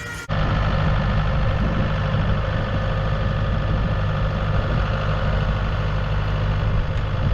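A vehicle engine running steadily at idle during a winch pull. The sound comes in suddenly about a quarter second in.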